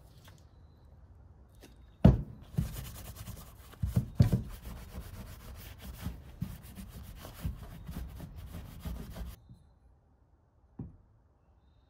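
Paper shop towel scrubbing blue layout fluid off a machined aluminum part with solvent, rubbing steadily on a rubber bench mat, with a few knocks of the part against the mat, the loudest as the scrubbing begins about two seconds in. The scrubbing stops near the end, leaving one click.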